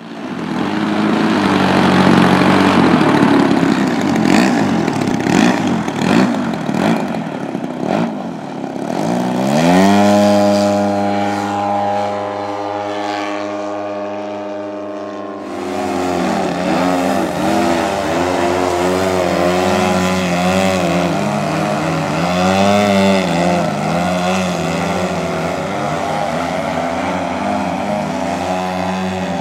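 Propeller engines of two radio-controlled 3D aerobatic airplanes running. The first seconds are a rough, noisy roar. About nine seconds in, an engine note climbs as the throttle opens and then holds steady. From about fifteen seconds, two engine notes can be heard, rising and falling as the planes manoeuvre.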